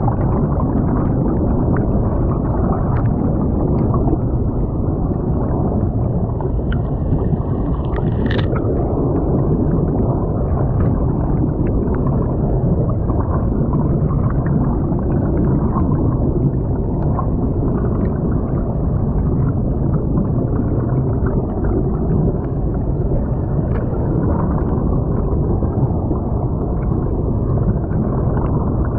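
Steady, muffled rush of creek water heard through a crashed FPV drone's camera lying submerged on the stream bed, with air bubbles rising from it. One short sharp click about eight seconds in.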